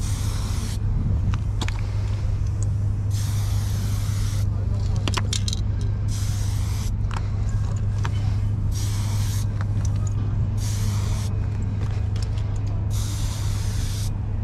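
Aerosol spray paint can sprayed in repeated bursts of about a second each, with short pauses between, over a steady low hum.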